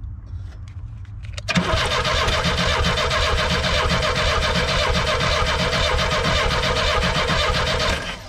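1985 Pontiac Fiero's 2.5-litre Iron Duke four-cylinder turned over by its starter, starting about a second and a half in and cranking steadily for about six and a half seconds without firing. No fuel comes from the disconnected fuel line: the fuel pump is not delivering fuel.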